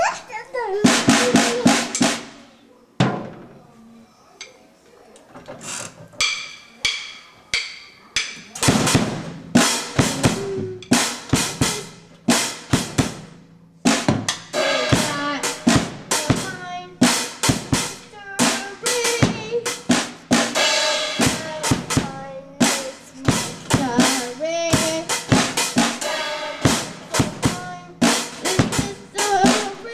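Mark II drum kit being played: quick strokes on snare, toms and bass drum with cymbal. A short burst of hits opens it, then a lull with only a few strokes for several seconds, then busy, steady drumming from about eight seconds in.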